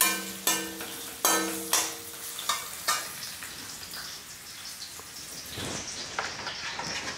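Carrot pieces sizzling as they fry in oil in an aluminium kadai. Over the first three seconds a metal slotted spatula knocks and scrapes against the pan in a string of strokes, and the pan rings briefly after the louder knocks. After that there is a steady sizzle.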